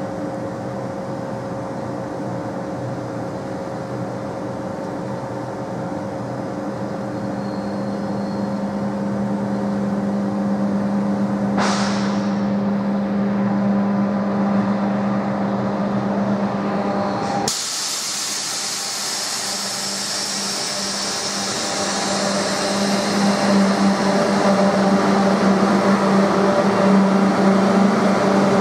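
Electric passenger trains at a station platform: a steady electrical hum with a brief hiss about twelve seconds in. The sound changes abruptly partway through, and in the last part a train running along the platform grows steadily louder.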